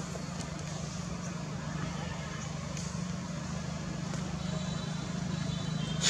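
Steady low mechanical hum, like a running engine, with a few faint high chirps and a brief sharp click at the very end.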